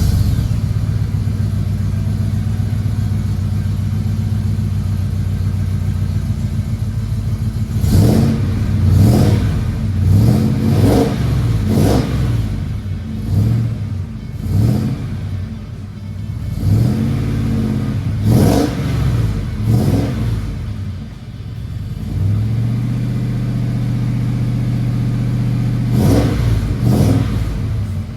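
Holden VN Calais 5-litre V8 idling just after start-up, then revved in a run of about ten quick throttle blips that each rise and fall back. It settles to idle again, then is blipped two or three more times near the end.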